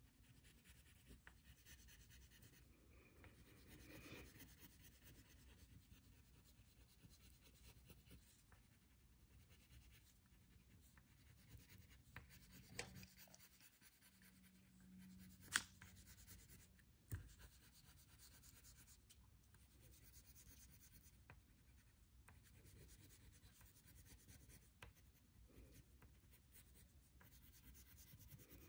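Brown wax crayon rubbing lightly back and forth on a paper coloring page, a faint scratching, with a few brief taps or clicks about halfway through.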